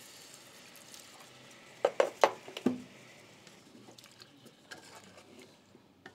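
Wooden spoon stirring rabbit and pepper strips in a copper pan of vinegar and water: a quick run of four or five sharp knocks about two seconds in, then faint light ticks and scraping.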